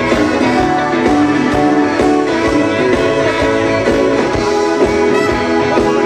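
A live band playing a jazzy soul tune with a steady medium beat and held, sustained notes.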